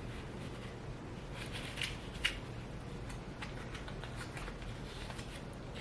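Faint rustling and a few light clicks of something being handled at close range, over low room hiss.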